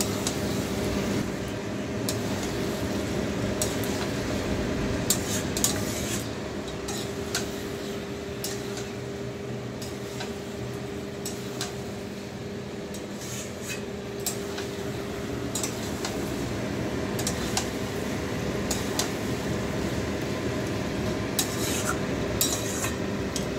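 A spatula scraping and clinking against a metal kadai as chicken pieces are stirred in hot oil, with irregular sharp knocks, over a steady low hum.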